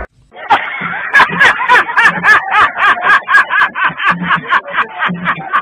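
Someone laughing in a quick, even run of "ha"s, about four a second, starting just after a brief silence at the very start.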